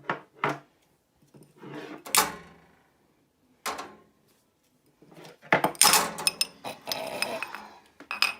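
Irregular clattering knocks: a few sharp knocks at the start, single knocks a couple of seconds apart, then a dense run of clatter in the second half.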